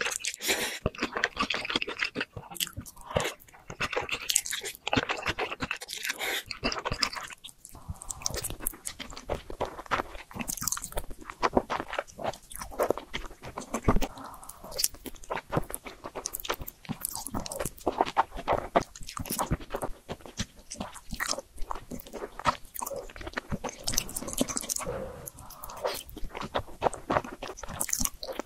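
Close-miked eating sounds of cheese-topped spicy noodles with corn: wet chewing, smacking and slurping, heard as a dense run of small mouth clicks. The texture turns sparser and sharper about seven seconds in.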